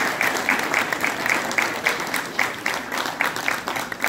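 Audience applauding, with one nearby person's claps loud and even at about four a second over the rest.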